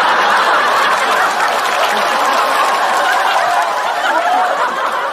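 A large studio audience laughing together: many overlapping voices in a loud, sustained wave of laughter that eases slightly near the end.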